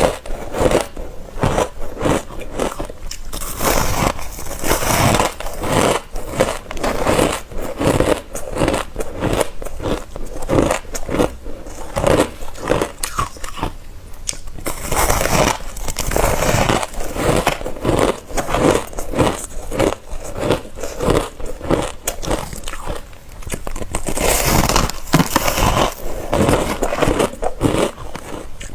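Close-miked biting and chewing of ice: rapid, repeated crunching and crackling as the ice breaks between the teeth.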